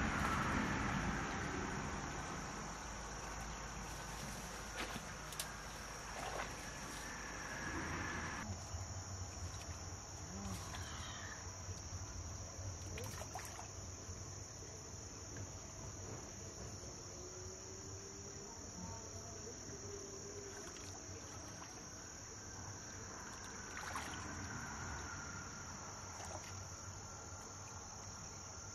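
Steady high-pitched insect chorus beside a stream, with scattered faint clicks and knocks.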